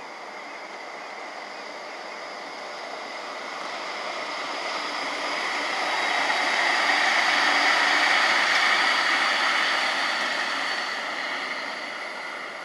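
Light rail tram passing at about 70 km/h: the rolling noise of its wheels on the rails rises to a peak about eight seconds in, then fades as it moves away.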